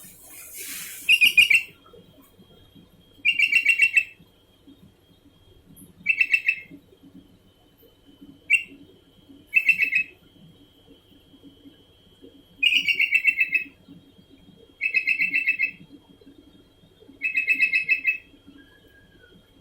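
Sooty-headed bulbul (kutilang) calling over and over: short, fast chattering phrases about half a second to a second long, repeated roughly every two seconds.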